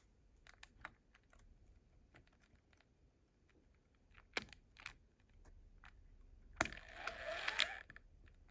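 Scattered small clicks and taps, like handling a small object. There are two sharper knocks a little past the middle, then a louder knock followed by about a second of rustling and scraping near the end.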